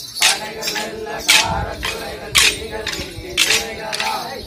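Kolattam dance sticks, short wooden sticks struck together in pairs by the dancers, making sharp clacks that are loudest about once a second, with men's voices over them.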